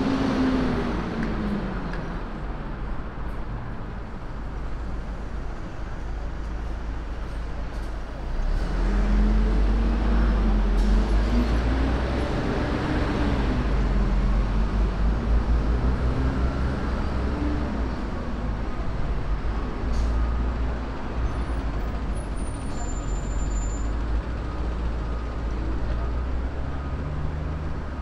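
Busy city road traffic with buses and cars passing close by, a steady low rumble throughout. A bus engine's pitch falls near the start and climbs again around ten seconds in, and the traffic is loudest through the middle.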